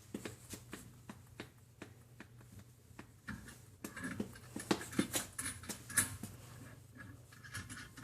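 Hands working a CO2 tank regulator's adjusting knob and fittings: a run of small sharp clicks and taps, busier and scratchier in the middle.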